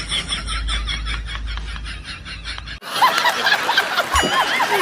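High-pitched laughter in quick, even pulses that cuts off abruptly about three seconds in, replaced at once by another stretch of giggling laughter.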